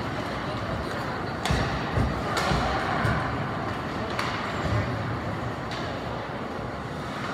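Ice hockey game in play: a steady rink hubbub broken by several sharp knocks of sticks and puck, the loudest about one and a half and two seconds in.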